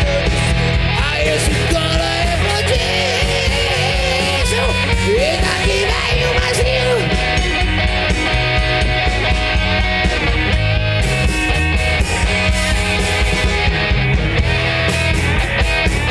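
Hard rock band playing live: electric guitars, bass and drums with a steady beat, and a singer's voice over roughly the first half.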